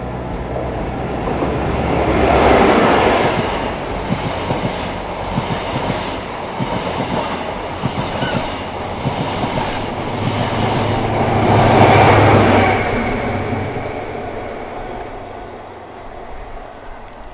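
A CrossCountry HST (InterCity 125) passes through the station at speed. Its diesel power-car engines are loudest as the leading car goes by about two and a half seconds in and again as the rear power car passes about twelve seconds in. Between them the coaches' wheels clatter over the rail joints, and the sound fades away near the end.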